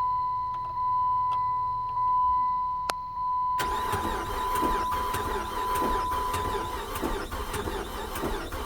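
A 2005 Chrysler 300's 3.5-litre V6 cranking on the starter about three and a half seconds in, straining and not catching: a crank-no-start. A steady high electronic warning tone sounds before the cranking begins.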